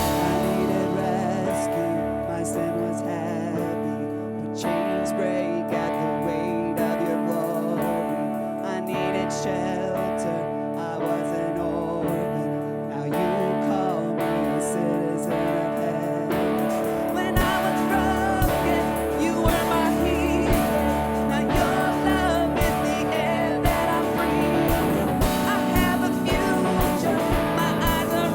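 Live church worship band playing an instrumental passage: held chords with guitar, and a steady drum beat joining a little past the middle.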